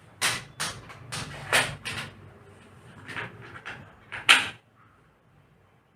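Sharp plastic clicks and knocks from a mosquito racket's casing being handled and opened, about ten in a row, the loudest just after four seconds in. They stop a moment later.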